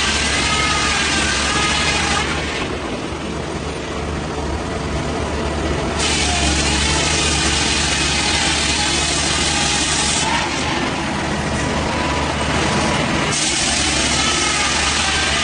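A sawmill's heavy engine running steadily, with the harsh hissing noise of the saw cutting through wood in three stretches that start and stop abruptly.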